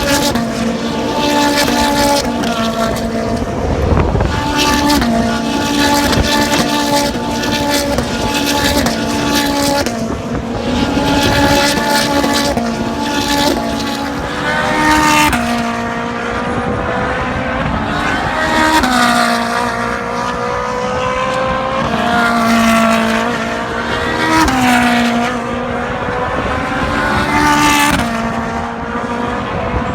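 Ferrari racing car engines running at high revs on track, the pitch climbing and falling over and over, with several sudden steps in pitch.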